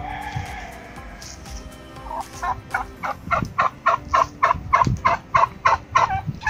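Domestic turkeys calling: one drawn-out call at the start, then a steady run of short, sharp calls, about four a second, lasting around four seconds.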